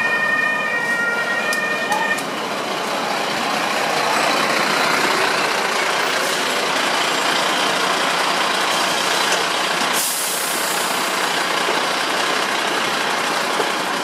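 A German fire engine's two-tone siren sounds for the first two seconds or so and then stops. After it, the diesel engines of arriving fire trucks run loudly and steadily, with a sudden hiss about ten seconds in.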